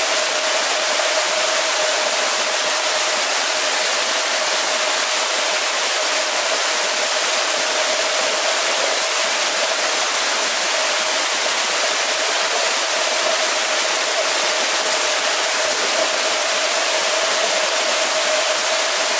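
Steady, even rushing noise with a constant hum at one pitch underneath, unbroken throughout.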